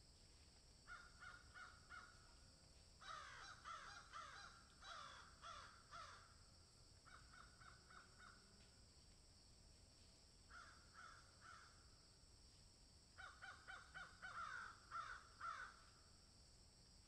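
Several crows cawing in bouts of quick repeated caws, at times overlapping, with pauses of a second or two between bouts; the loudest bout comes near the end.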